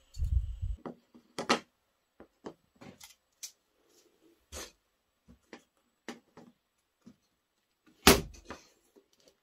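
Handling sounds of thin wooden strips and a metal mesh range-hood filter being picked up and laid on a workbench: soft thumps at first, then scattered light clicks and knocks, the loudest knock about eight seconds in.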